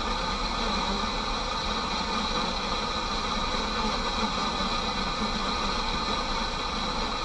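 Steady idling-engine hum and traffic noise picked up by a dashcam microphone inside a stopped car, with no sudden sounds.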